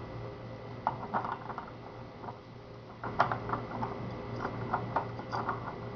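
Small metal clicks and taps of lock parts being handled as a rim cylinder is taken out and a modified cylinder is fitted, the loudest click about three seconds in, over a low steady hum.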